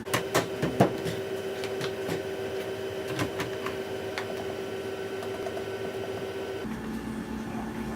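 Washing machine running with a steady hum. Several sharp clicks come in the first second and a few more about three to four seconds in, just before the machine is found to be impossible to stop mid-cycle.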